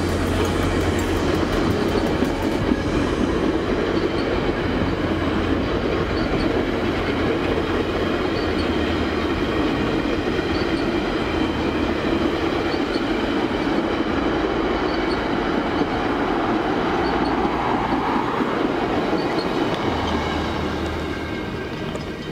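Stainless-steel passenger cars of VIA Rail's Canadian rolling past at speed: a steady rumble and rush of wheels on the rails, with a light, regular clicking as the wheels cross rail joints.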